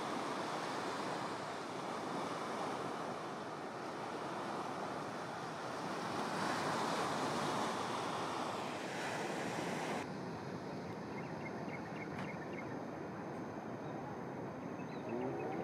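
Steady wash of ocean surf breaking, mixed with wind on the microphone. About ten seconds in, the sound changes abruptly to a duller surf wash with faint high chirps.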